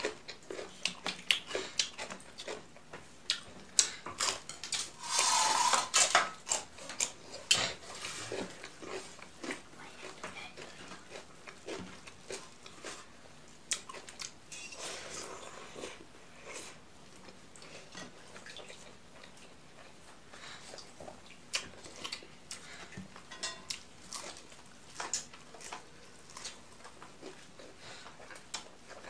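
Close-miked eating: chewing and crisp bites of cucumber with rice, and fingers working rice on a plate, with many short clicks and taps against the dishes. Loudest for a second or so about five seconds in.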